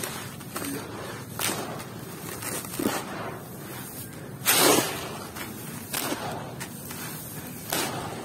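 Dry sand with small gravel grains pouring from cupped hands and being raked by fingers, a grainy rustle. There are several separate pours about a second and a half apart, the loudest about halfway.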